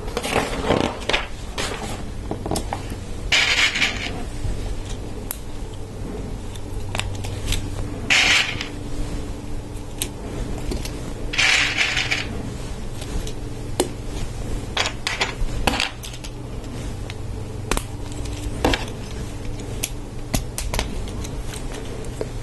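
Small plastic LEGO Technic parts clicking and clinking as hands fit pieces onto axles and handle a gear assembly, with three short louder rustling scrapes of plastic parts.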